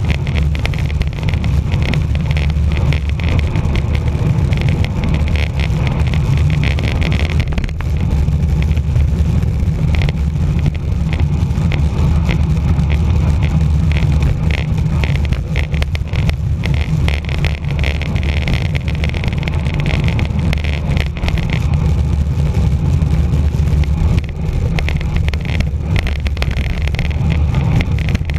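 Steady, heavy wind rumble on the microphone of a bicycle-mounted camera during a fast downhill run, mixed with the hiss and rattle of tyres on the road.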